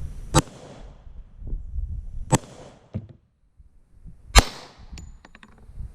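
Glock 20SF pistol firing 10mm handloads: three shots, about two seconds apart. A few light clicks follow the third shot.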